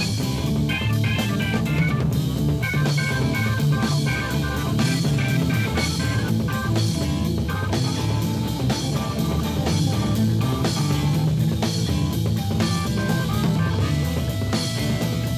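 A live rock band plays an instrumental passage with no singing: electric guitar lines over a drum kit.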